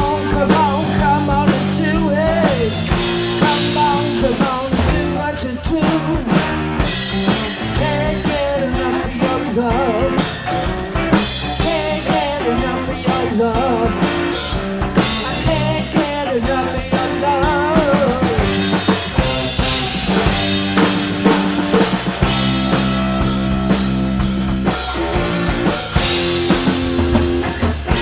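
A rock band playing a song: drum kit with snare and bass drum keeping a steady beat under bass and guitar, with a singing voice in places.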